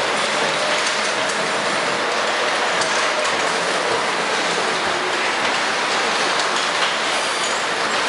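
Steady background din of a car assembly plant floor: an even, hiss-like roar that holds at one level, with a few faint clicks.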